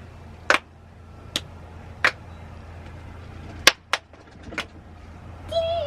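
Hands slapping and clapping together in about six sharp, irregularly spaced claps as two children do a clapping handshake, over a steady low rumble.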